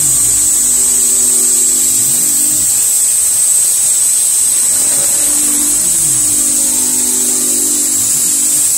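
CNC-converted Precision Matthews PM-30MV milling machine cutting an optic pocket into a steel pistol slide with an end mill, under a steady high-pitched whine. The axis motors' low tones rise and fall each time the cutter changes direction on its pass, repeating about every three seconds.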